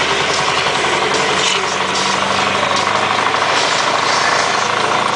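Scania R580's 16-litre V8 diesel with straight pipes, pulling a full load, heard from inside the cab. The engine note holds steady at an even speed.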